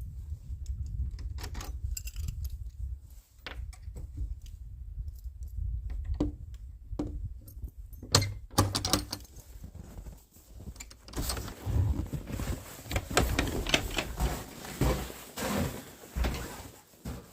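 Scattered clicks, clinks and scrapes of gear being handled, sparse at first and busier in the second half, over a low steady rumble.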